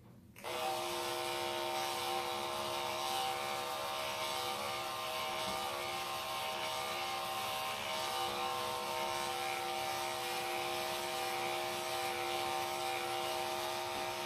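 Electric pet grooming clippers switched on about half a second in, then running with a steady buzzing hum while clipping a dog's coat.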